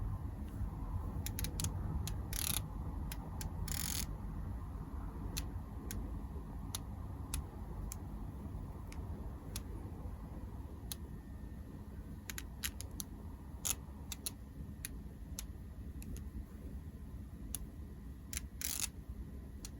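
iPhone 12 mini rear camera module making irregular clicks, with a few short buzzes. This is the abnormal noise of a camera whose autofocus and optical image stabilisation appear to have failed.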